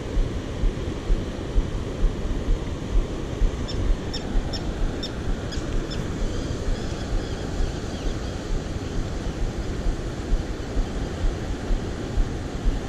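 Wind buffeting the microphone in gusts over the rush of fast-flowing river water. A short run of high chirps sounds about four to six seconds in.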